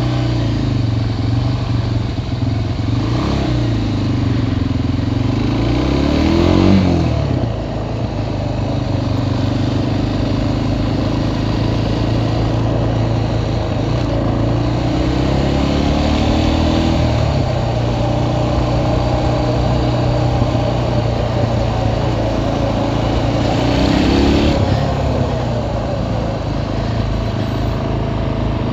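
Suzuki sport ATV engine running while the quad is ridden, with its revs rising sharply and falling back four times as it pulls away and accelerates.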